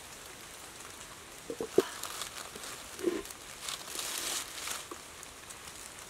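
Dry fallen leaves crackling and rustling under bare feet and as a bowl is set down on the leaf litter, with a sharp knock about two seconds in and a duller knock about a second later.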